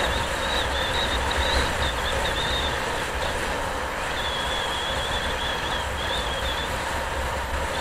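Steady driving noise from a road vehicle on the move: a low rumble with road and wind noise. A thin, wavering high whine comes and goes over it.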